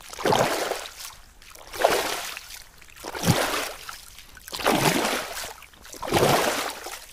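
Swimming sound effect: water splashing with each stroke, five strokes at an even pace of about one every second and a half.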